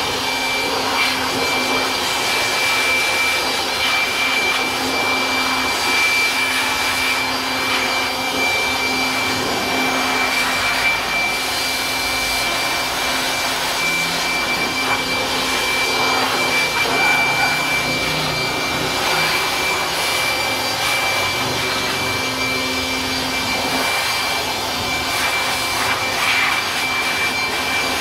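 Handheld electric blower running steadily: a rush of air with a high, even motor whine over a lower hum.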